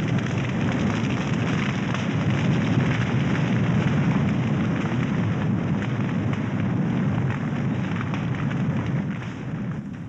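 Eucalyptus forest fire burning: a loud, dense rush of flame with many small crackles and pops, easing a little near the end.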